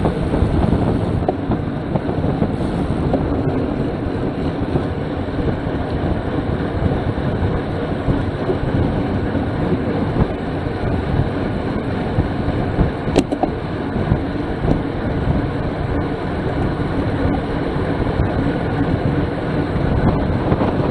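Steady rush of wind and road noise on a bike-mounted camera on a racing bicycle at about 25 mph, with a single sharp click about thirteen seconds in.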